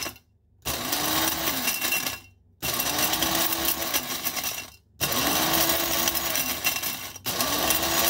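KitchenAid blade coffee grinder pulsed four times, each run about two seconds long with short breaks between, chopping dried lemon and lime slices. The motor note rises as it spins up at the start of each pulse.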